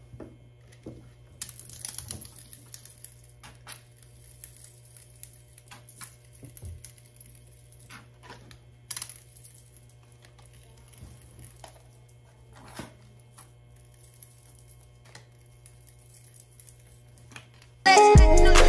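Scattered soft clicks, taps and wet handling sounds of hands and a squeeze applicator bottle working hair dye into hair in a plastic shampoo bowl, over a low steady hum. Loud hip hop music starts just before the end.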